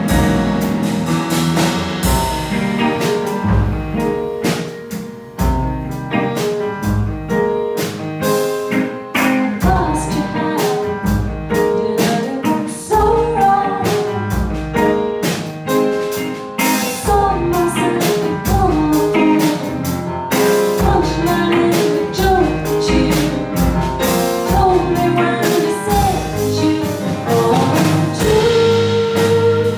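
Live jazz trio playing together: upright piano, electric guitar through an amplifier, and a drum kit with steady drum and cymbal strikes.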